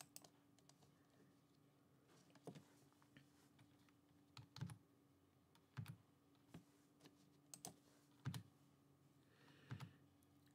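Near silence with scattered faint clicks of computer keys being pressed, irregularly spaced, over a low steady hum.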